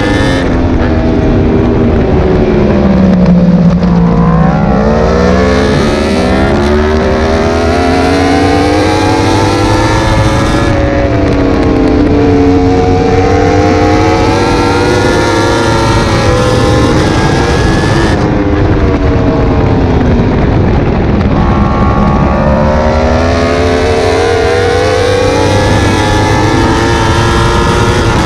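Yamaha R1 race bike's crossplane inline-four heard onboard at racing speed, its pitch falling for a few seconds under braking and downshifts and then climbing again on the throttle, several times over, with wind rushing past.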